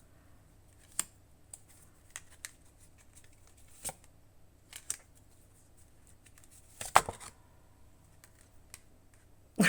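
Tarot cards being handled and drawn: scattered light clicks and taps of card stock, with a louder flurry of card noise about seven seconds in.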